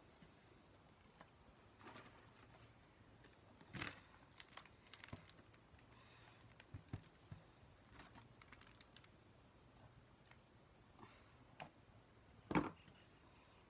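Faint rustling and clicking of hands working potting mix into small plastic seedling pots, with scattered light taps and one sharper knock near the end.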